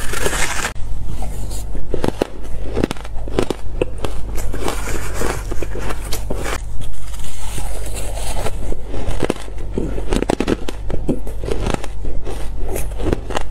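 Close-miked crunching and chewing of shaved ice, mixed with a metal spoon scraping and scooping through the ice. The crackling and crunching is dense and irregular.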